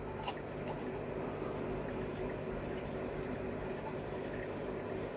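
Steady low background hum with a few faint light ticks in the first two seconds, as small plastic model parts are handled.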